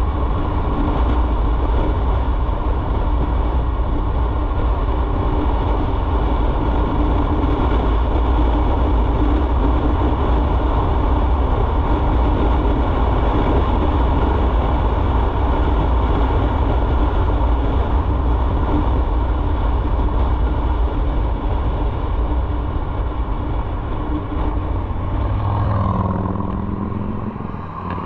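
Motorcycle engine running at a steady cruise with heavy wind and road rumble. Near the end the engine note drops and the sound quietens as the bike slows.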